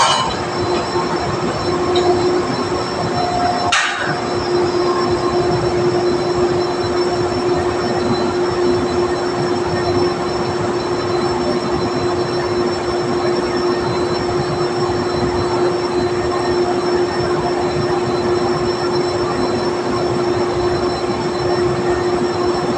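Drilling rig machinery running: a loud, steady mechanical noise with a constant hum, broken by one brief click about four seconds in.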